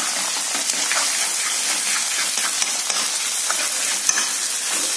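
Egg, shrimp and meatballs frying in sesame oil in a wok: a steady sizzle. A spatula scrapes and taps the pan now and then as the egg is broken up and stirred in.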